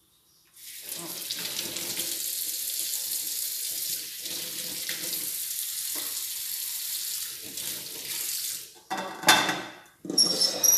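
Kitchen tap running into a stainless-steel sink while chayote is rinsed under it; the water stops about nine seconds in. A short, loud clatter of kitchenware follows near the end.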